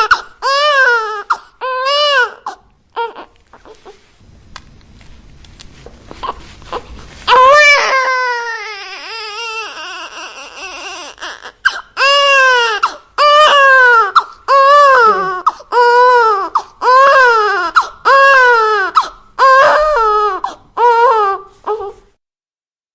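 Newborn baby crying in short wails that rise and fall in pitch, about one a second. After a quieter lull of a few seconds comes one long cry, then the regular wails resume and stop shortly before the end.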